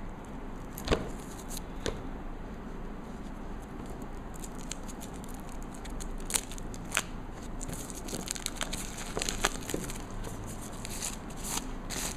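Clear plastic shrink wrap being picked at, torn and peeled off a phone's cardboard box, crinkling and crackling. A sharp click about a second in, and the crackling grows denser near the end.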